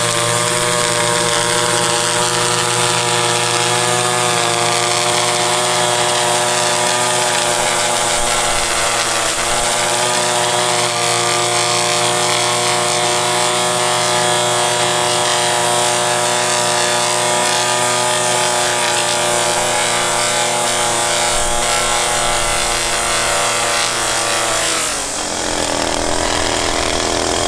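Small gasoline engine running steadily at high speed, its pitch changing sharply near the end.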